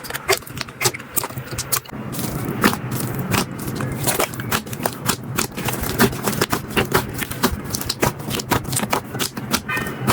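Slime being squeezed and pressed, giving a dense run of small sharp pops and crackles.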